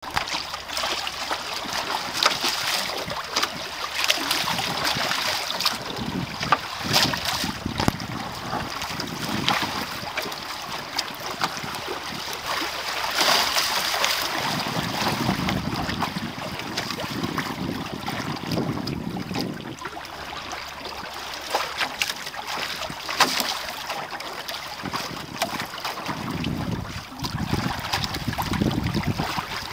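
Water rushing and splashing along the hulls of a small sailing trimaran under way. Wind buffets the microphone in stretches, about halfway through and again near the end.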